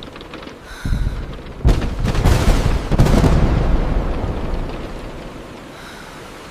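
A thunderclap over steady rain. A low rumble starts about a second in and a sharp crack comes just before two seconds. Rolling thunder follows and fades over the next few seconds.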